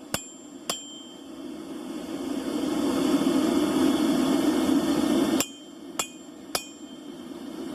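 Blacksmith's hammer striking metal on an anvil, each blow ringing briefly: two blows right at the start and three more about half a second apart near the end. In between, a steady low rushing noise swells and fades.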